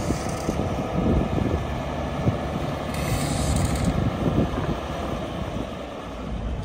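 1998 Mack CL-613 dump truck's diesel engine running as the truck drives slowly, with a brief hiss about three seconds in.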